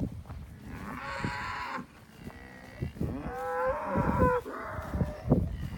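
Cattle mooing in a herd of crossbred beef cows: a short rough moo about a second in, then a longer, clearer moo near the middle.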